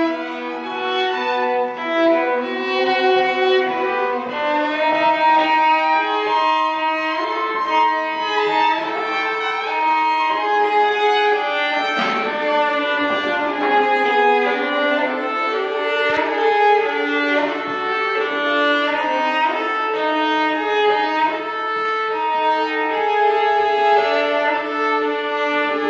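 A violin playing a classical melody with bowed, sustained notes.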